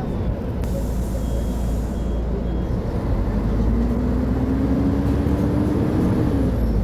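Diesel engine of a Mercedes-Benz O500UA articulated bus running under load, its note rising steadily from about three seconds in and dropping shortly before the end, as at a gear change. A short hiss of air about a second in.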